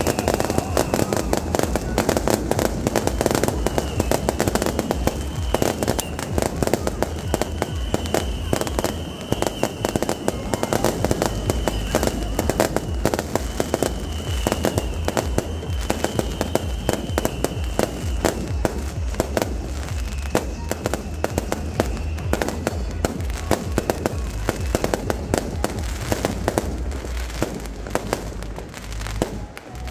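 Fireworks and firecrackers going off in a dense, unbroken stream of rapid bangs and crackles. A high wavering tone comes and goes over them.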